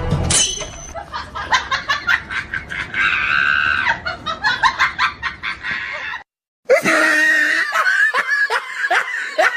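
A voice laughing hard in repeated bursts with a drawn-out scream-like cry about three seconds in. The sound cuts out abruptly for half a second just after six seconds in, then the laughter resumes in a quick run of falling 'ha' sounds.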